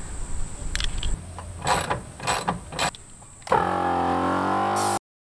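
Sharp metal clicks of sockets and a ratchet being handled, then a 12 V air compressor starts and runs with a loud, steady hum for about a second and a half before cutting off suddenly.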